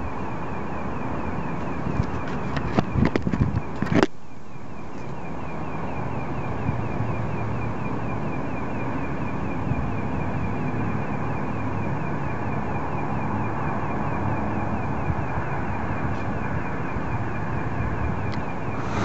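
A steady pulsating noise of unknown origin, with a rapid repeating pulse in its upper part over a wide droning hiss. A few sharp knocks sound about two to four seconds in.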